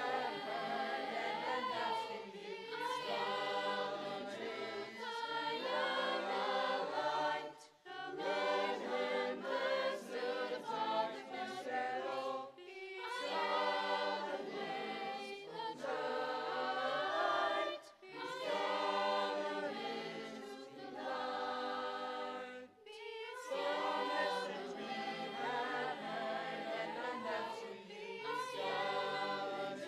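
Mixed choir of teenage boys and girls singing in parts, phrase after phrase, with brief breaks between the phrases.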